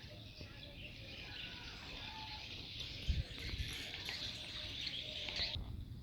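Small birds chirping and twittering in a dense, high-pitched chatter that stops abruptly near the end, with a couple of low knocks about halfway through.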